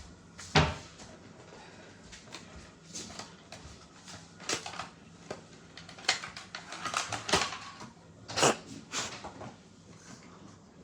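Hands handling small objects: irregular taps, rustles and crinkles, with a sharp knock about half a second in and a busier stretch of rustling between about six and nine seconds.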